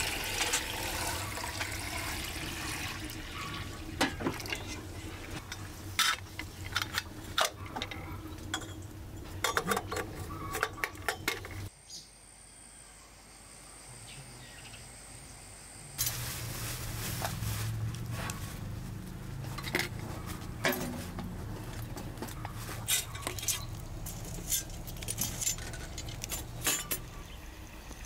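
Water poured into a metal samovar at the start, then many light clinks and knocks of metal pots and utensils being handled, with a quieter spell in the middle.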